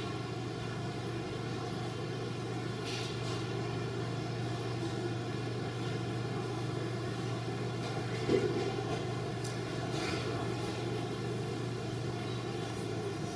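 Steady whine and rumble of a Boeing 747's four turbofan engines at idle thrust as the airliner taxis, with a short knock about eight seconds in.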